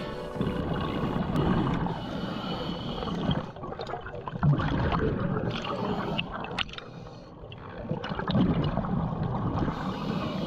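Water gurgling and sloshing, swelling and fading in uneven surges.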